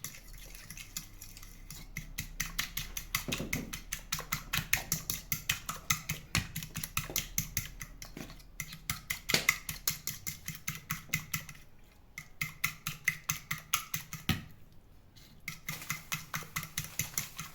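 A utensil beating egg yolks with sugar and flavourings by hand in a mixing bowl, clicking against the bowl in a fast, even rhythm of about five strokes a second, pausing briefly twice.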